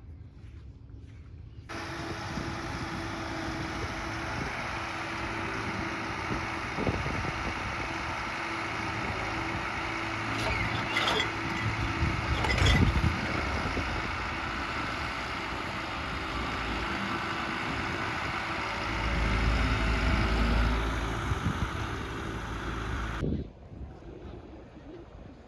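Street traffic: a steady engine hum under a wash of road noise, with a louder low rumble about three-quarters of the way through as a vehicle passes.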